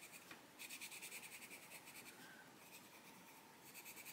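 Arteza Expert coloured pencil shading on colouring-book paper: faint, rapid back-and-forth scratching strokes, with a short break just after the start.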